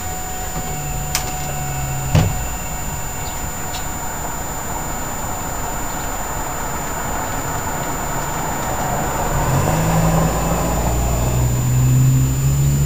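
A low mechanical hum with one sharp knock about two seconds in, slowly getting louder over the last few seconds.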